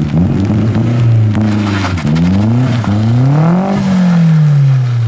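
Rally car engine accelerating through the gears, its pitch climbing and dropping back at each shift, twice in quick succession about two seconds in. It peaks near four seconds, then falls steadily.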